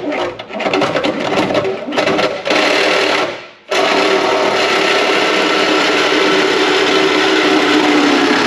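Power tool cutting through the car's sheet-metal floor pan. It runs unevenly at first, stops briefly about three and a half seconds in, then starts again and runs steadily.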